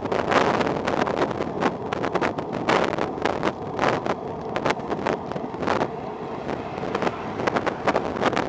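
Wind buffeting the microphone of a camera on a moving bicycle, in irregular gusts.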